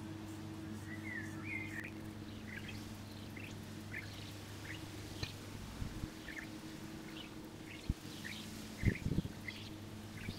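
Small birds chirping outdoors: short, high chirps repeating about once or twice a second, over a faint steady low hum.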